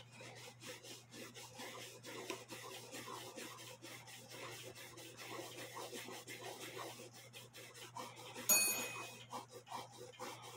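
A cloth rag rubbing oil into a small wooden clock part in faint, quick, repeated strokes. A short metallic ding rings once about eight and a half seconds in.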